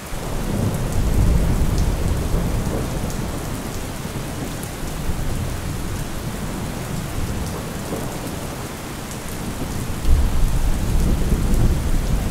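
Steady heavy rain with rolling thunder rumbling low. The sound swells in at the start, and a deeper, louder roll of thunder breaks in suddenly about ten seconds in.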